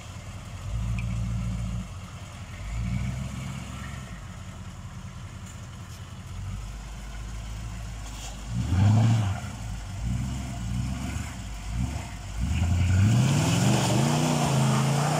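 Chevrolet K5 Blazer's 6.2-litre V8 diesel engine revving in several short bursts under load while pulling through deep mud, then rising near the end to a loud, high rev that it holds.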